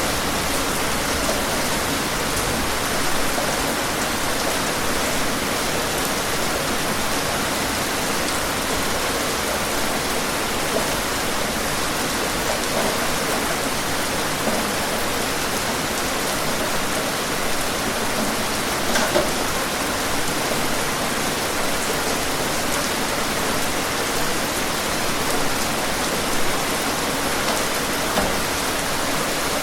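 Steady rain, a dense even hiss of falling water with scattered individual drops ticking on a surface.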